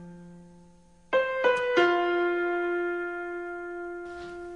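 Soft piano background music. A held chord fades away, then a few new notes are struck in quick succession about a second in and left ringing as they slowly die down.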